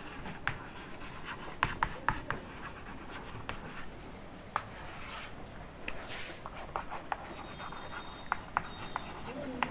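Chalk writing on a chalkboard: light taps and short scratching strokes as letters are formed, with one longer scrape about five seconds in as a line is drawn under the heading.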